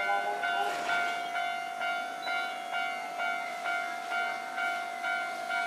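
Railway level-crossing warning alarm ringing: one steady tone with a repeated clanging beat, about two strokes a second.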